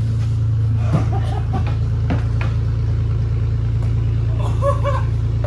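A vehicle engine idling steadily, with a few short thumps about one, one and a half and two seconds in.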